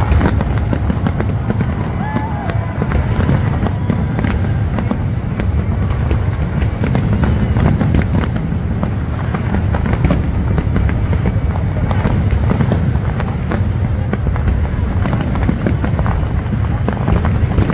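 Fireworks going off in a dense, continuous barrage: many sharp bangs and crackles over a steady low rumble.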